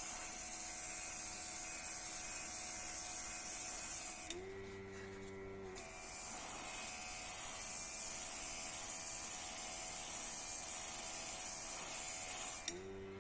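Cordless rechargeable airbrush compressor running while the airbrush sprays paint in a steady hiss. About four seconds in the hiss stops for a second and a half as the trigger is let go, leaving the compressor's motor hum, then spraying resumes until just before the end, when the hiss stops again.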